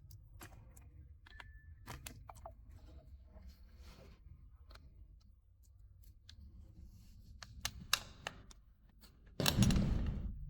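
Light clicks and small taps of hand tools tightening the screws of a skateboard handle base, with a louder scraping rustle lasting about a second near the end.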